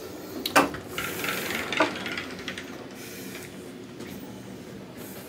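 Sliding barn-style door rolling along its track, with a rubbing scrape and two knocks about half a second and two seconds in.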